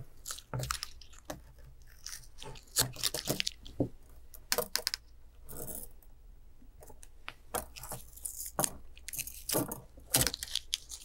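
Paper tape being peeled off a frame of crossed craft wires, with short rips of the tape and irregular metallic clicks and taps as the wires are handled.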